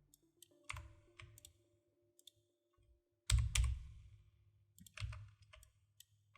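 Computer keyboard and mouse clicks: scattered single keystrokes and clicks, with two louder, heavier key presses about three and five seconds in.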